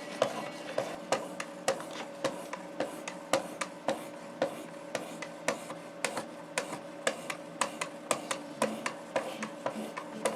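Spyderco Native 5 blade in SPY27 steel being stroked across a sharpening stone in quick, even passes, about two a second, each with a sharp scrape-click, as the edge is refined toward a polish.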